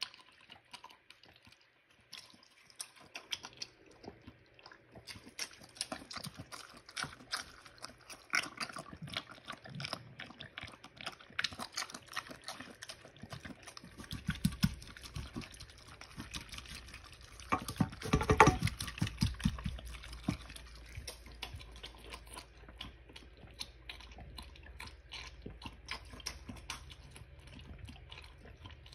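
Mini pig eating feed pellets soaked in water: frantic wet slurping and chewing, a dense run of quick smacks and clicks with its loudest burst about two-thirds of the way through. A low steady hum runs under the second half.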